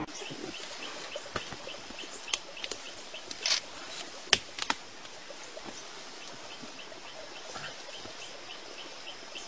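Outdoor ambience with a small animal's high chirp repeating steadily about three times a second. Several sharp clicks and a brief rustle come between about two and five seconds in.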